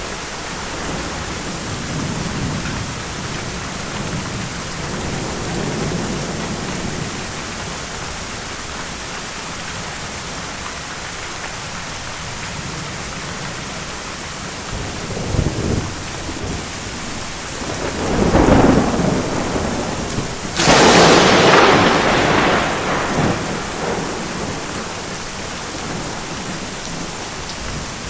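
Steady heavy rain with rolling thunder: low rumbles, then about two-thirds of the way in a louder peal followed by a sharp crack of nearby thunder that rumbles away over a few seconds.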